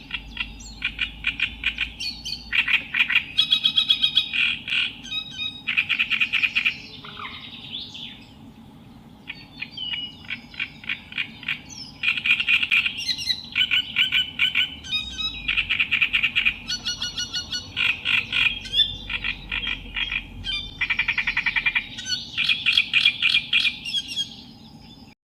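Songbird singing in fast chattering trills and rapidly repeated phrases, in bursts broken by short pauses, with a quieter lull about eight to twelve seconds in.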